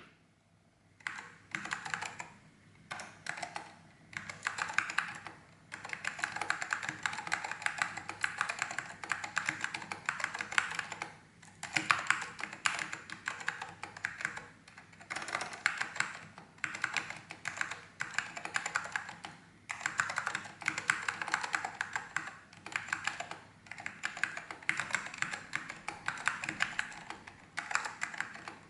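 Apple Standard Keyboard with orange Alps switches being typed on: rapid, continuous keystrokes in runs of a few seconds with brief pauses between them, starting about a second in.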